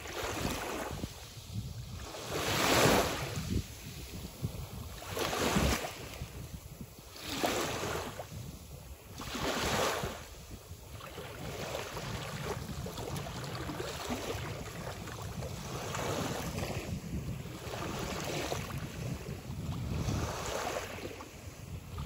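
Small sea waves washing up on a sandy beach: four louder washes about two seconds apart in the first ten seconds, then a steadier, gentler wash.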